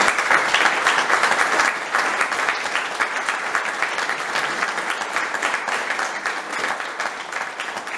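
Audience applauding, a dense steady clapping that slowly grows quieter.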